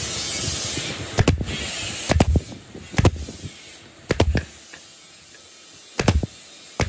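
An F50 pneumatic brad nailer fires about eight sharp shots, some in quick pairs, driving brads through thin pine strips into a pine board. A steady hiss of air comes before them, in the first second.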